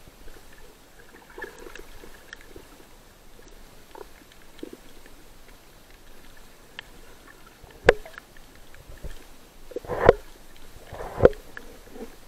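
Underwater sound of snorkelers swimming, picked up by a camera in a waterproof housing: a low, even hiss with scattered faint knocks, and three sharper thumps about two-thirds of the way in and near the end.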